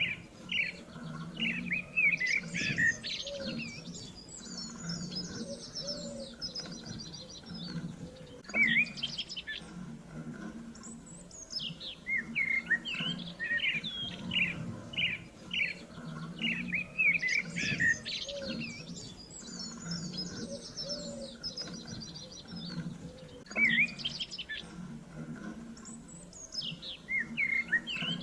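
Several small songbirds chirping and twittering at once: quick runs of short chirps overlapping with rapid, high trills.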